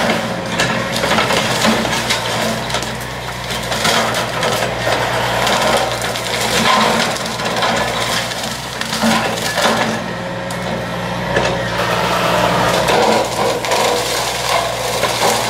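Blue Diamond extreme-duty excavator brush cutter, driven by a piston motor, chopping through grass and brush. A dense, constant crackle of shredded material sits over a steady machine hum.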